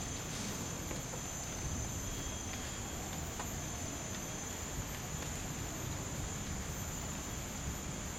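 Steady high-pitched drone of insects in tropical forest, with a low rumble underneath.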